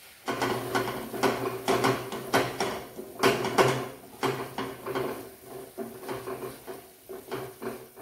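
A wooden spatula stirring thick gravy in a stainless steel kadai, scraping and knocking against the pan in an irregular run of clacks, over a steady low hum.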